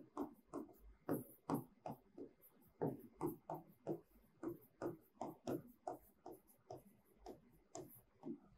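Pen strokes and taps on an interactive display screen while handwriting: a faint run of short ticks and scratches, about two to three a second.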